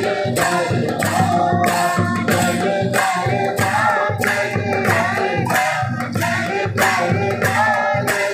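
Aarti hymn sung by several voices over a steady percussion beat of about two strikes a second.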